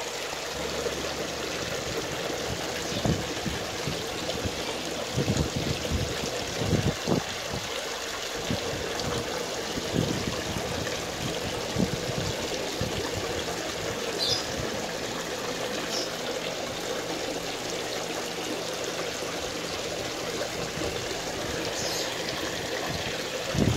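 Water trickling and splashing steadily into a fish pond, with a few low thumps about five to seven seconds in.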